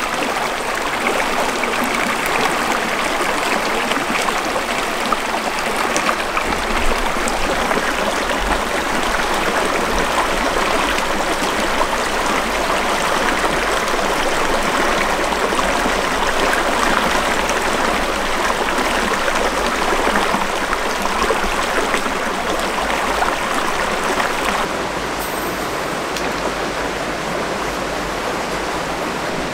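Shallow mountain creek running over rocks close by: a steady rush of water. It drops a little in level about 25 seconds in.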